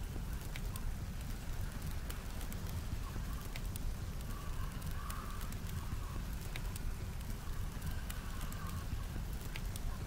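Wood fire crackling, with sharp scattered pops, over a steady low rumble of blizzard wind that swells with a faint higher whoosh around the middle and again near the end.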